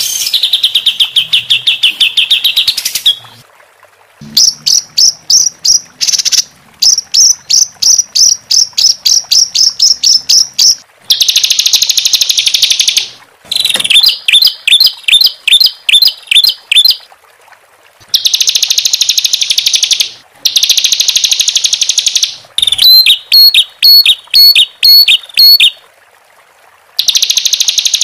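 Songbird song of the kind used as a bird-training 'masteran' recording: rough, buzzy trills of about two seconds alternating with fast runs of sharp repeated notes, several a second, with short pauses between phrases.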